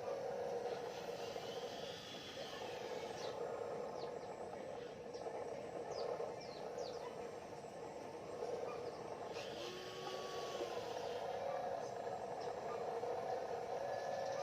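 Small electric motors and gearboxes of a radio-controlled excavator and dump truck model whining steadily as they work, with a few light clicks in the first half and a short rising-and-falling motor whine about ten seconds in.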